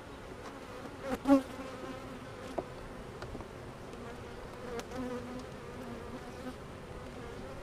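Honeybees buzzing steadily over an opened hive. A metal hive tool knocks and scrapes against the wooden frames as they are pried loose, with the loudest knock about a second in and a sharp click a little later.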